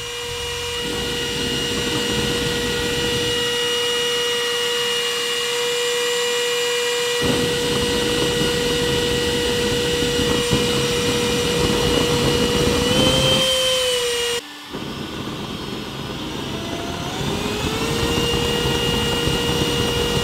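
Electric fan in an acrylic tube running with a steady high whine over a rushing airflow, joined about seven seconds in by a heavier, deeper rushing as the propane afterburner flame burns through the tube. About two-thirds of the way through, the whine rises slightly and the sound cuts off abruptly. The whine then climbs back up to the same steady pitch.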